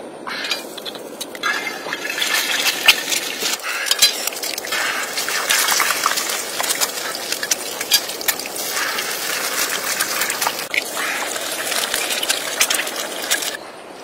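Eggs frying in hot oil in a pan: a dense crackling sizzle with many small spits and pops. It starts as the first egg goes into the oil, grows louder about two seconds in, and drops away sharply just before the end.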